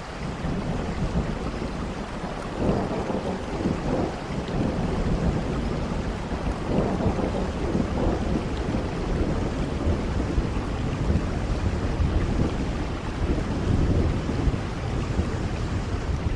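Thunderstorm sound effect: steady heavy rain with low rolling thunder that swells several times.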